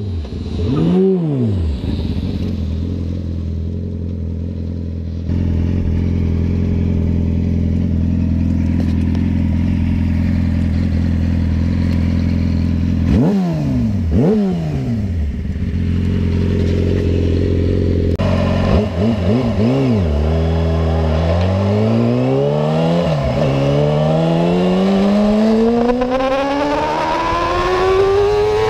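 Yamaha R6 inline-four sport bike engine: it passes by at speed with a falling pitch, then idles steadily with two sharp throttle blips. Then it runs at full throttle, the revs climbing high in first gear, dropping at one quick upshift about two-thirds of the way through, and climbing again in second.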